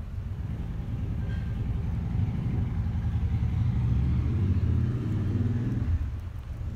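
Low rumble of a motor vehicle driving past, building to its loudest about two thirds of the way through and then easing off.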